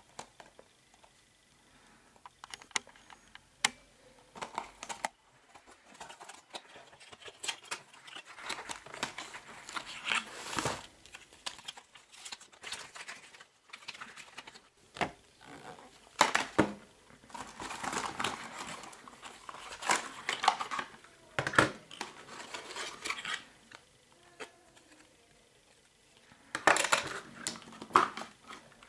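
Paper packaging and a fold-out instruction leaflet rustling and crinkling as they are handled. The rustling comes in irregular bursts, mixed with light clicks and taps, and pauses briefly a few times.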